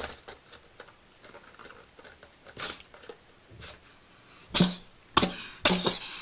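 Cat sneezing over and over in short, sharp bursts: a few scattered sneezes, then a quicker run of louder ones in the last couple of seconds.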